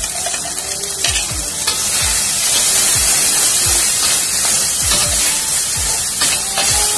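Freshly added ground spice paste sizzling in hot oil in an aluminium wok, stirred with a metal spatula that scrapes and knocks against the pan again and again. The sizzle grows louder about two seconds in.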